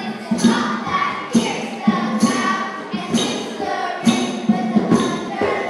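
Music with a steady, strong drum beat, a main beat a little under once a second, with lighter percussion hits between.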